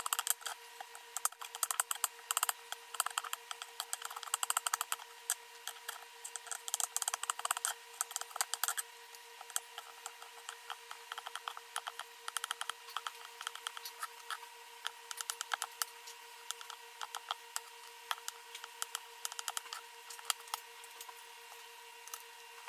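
A large kitchen knife chopping offal on a cutting board: quick runs of sharp chops for the first nine seconds or so, then slower, scattered strokes. A steady faint hum runs underneath.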